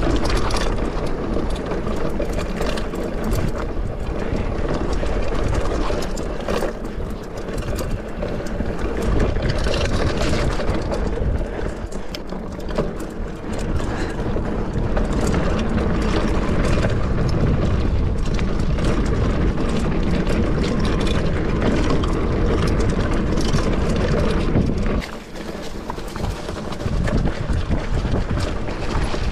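Mountain bike ridden over bare rock and a rough dirt trail: tyres rumbling and the bike rattling and clattering over the bumps, dipping briefly in loudness near the end.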